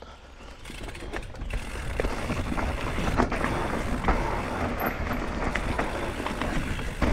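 Mountain bike rolling downhill over a trail covered in dry leaves: tyre and trail noise with wind rushing on the camera microphone and scattered small knocks and rattles from the bike. The noise builds over the first couple of seconds as the bike picks up speed, then runs steadily.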